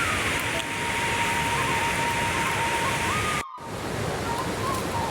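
Steady, loud rushing noise like heavy rain or fast water, with a thin, high, whistle-like tone that steps up and down in pitch. The sound cuts out briefly about three and a half seconds in.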